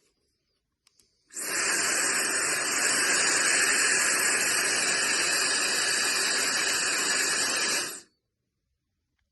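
A brushless high-speed ionic hair dryer is switched on and runs at a steady rush of air with a faint high motor whine, then cuts off suddenly after about six and a half seconds. A small click comes just before it starts.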